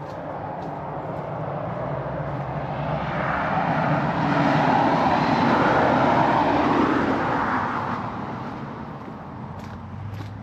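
A vehicle driving past, its road noise rising to a peak about five seconds in and then fading away.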